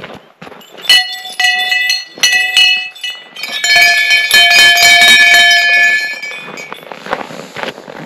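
Small metal bells at a shrine struck by hand: a few separate rings about a second in, then a spell of rapid ringing that dies away near the end.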